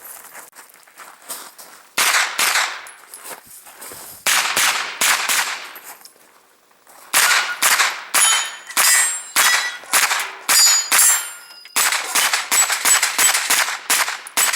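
Pistol-caliber carbine fired in a string at steel targets, the hits answered by ringing clangs. Shots come a couple of seconds apart at first, then after a short lull about halfway in, a rapid run of about two shots a second.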